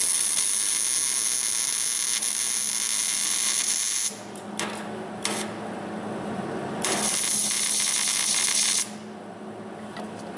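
Electric welder arc sizzling and buzzing as a nut is welded onto a broken exhaust manifold bolt stub to extract it: one run of about four seconds, two short blips, then a second run of about two seconds.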